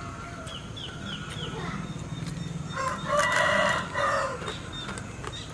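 A rooster crows once, about three seconds in, a single call lasting just over a second, over a steady low hum.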